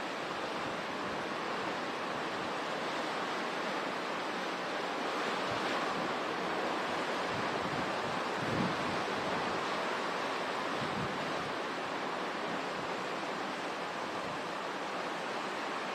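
Hurricane wind and driving rain: a steady rushing noise, with gusts buffeting the microphone a couple of times, the strongest about eight and a half seconds in.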